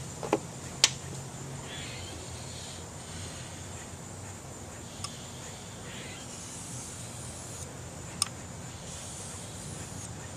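Knife blade being stroked across a sharpening stone: soft scraping hisses that come and go every second or two, with a few sharp clicks, the loudest near the start.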